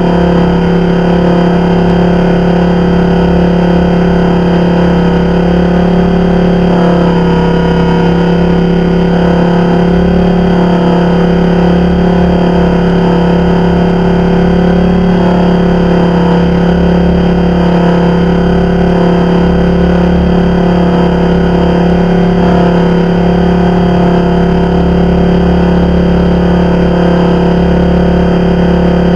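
Blade 400 electric RC helicopter's motor and rotors running at a steady, unchanging pitch, picked up from the camera slung right under its landing gear.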